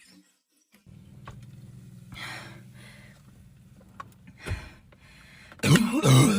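Sharp breaths and sniffs from someone drinking Sprite fast, then a loud, low vocal sound with a wavering pitch starting near the end.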